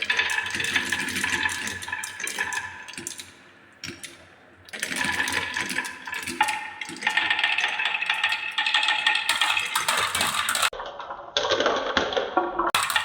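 Glass marbles rolling and clattering down wooden tracks and steps, a steady run of quick clicks and knocks with a ringing rattle. It drops off briefly about four seconds in and changes abruptly a few times, like cuts between runs.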